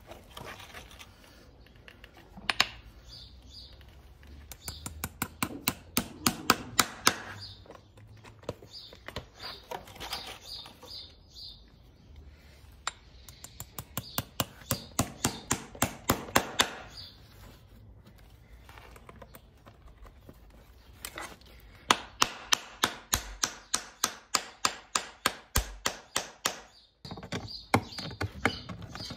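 Farrier's driving hammer tapping horseshoe nails through a steel shoe into the hoof wall: several runs of quick, sharp metal taps, one run per nail, with short pauses between.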